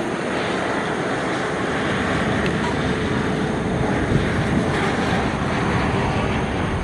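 Strong wind blowing across the microphone: a loud, steady rush with a gusty low rumble.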